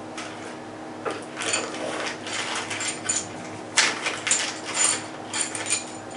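Small clear plastic accessory bag crinkling and rustling as it is handled and pulled open, a string of irregular crackles from about a second in.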